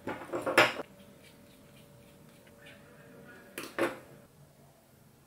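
Metal GX16 connector parts clicking and rattling as they are handled. There is a cluster of sharp clicks in the first second and another pair just before four seconds in, with quiet between.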